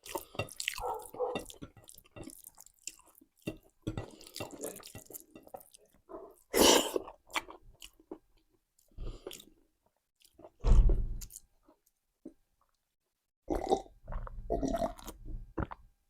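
Close-up chewing of raw cabbage: crisp, wet crunches and mouth sounds, with a louder crunch about seven seconds in and a brief low thump about eleven seconds in.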